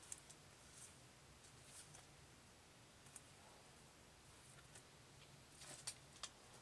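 Near silence: room tone broken by a few faint, short clicks, a couple just after the start, one about three seconds in and two more near the end.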